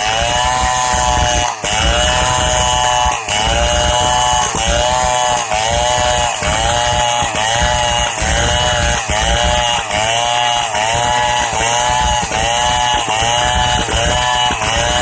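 STIHL 070 chainsaw's big two-stroke engine running at high revs while cutting through a log. Its pitch sags under load and picks back up in a steady rhythm, about once every three-quarters of a second.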